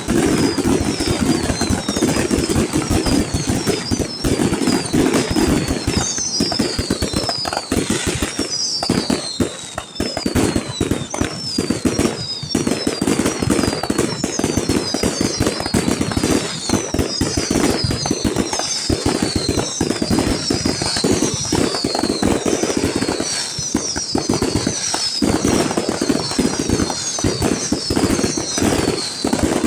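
Fireworks display in a dense barrage: rapid, overlapping bangs and crackles with no break, and many short high whistles that fall in pitch, one after another, all the way through.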